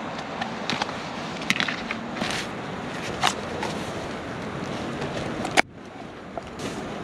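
Clinks and knocks of camp cooking gear and ingredients being handled over a steady rushing hiss, with a sharp knock about five and a half seconds in.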